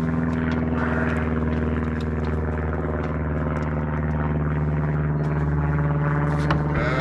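Motor vehicle engine running at a steady speed with a low, even hum.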